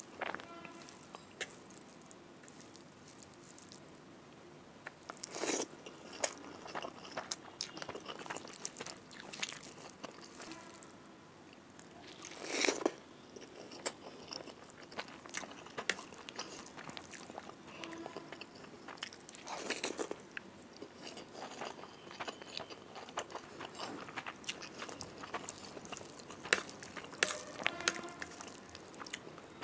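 Close-miked eating: chewing mouthfuls of rice and fish curry eaten by hand, with wet mouth sounds and small crackles, and a louder crunchy bite every six or seven seconds.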